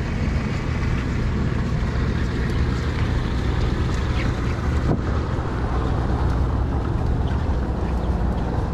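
Steady low drone of a sportfishing boat's engines, with wind on the microphone and water washing along the hull.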